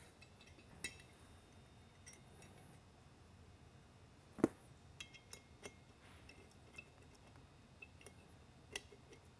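Faint scattered clicks, ticks and knocks of small hardware being handled: a bolt threaded by hand and a Torx screwdriver worked against the spotlight's metal mounting bracket and housing. One louder knock comes about halfway through.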